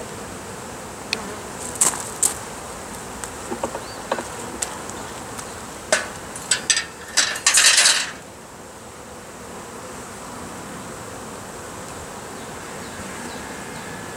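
Honeybees buzzing over an open hive, with sharp clicks and knocks of wooden frames being nudged into place with a hive tool. A short, louder scraping rasp comes about eight seconds in, after which only the buzzing remains.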